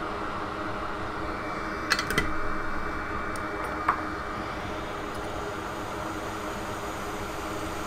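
Steady whirring hum of a fan on a microsoldering bench. Small sharp clicks of a metal tool come about two seconds in, once more just after, and again about four seconds in.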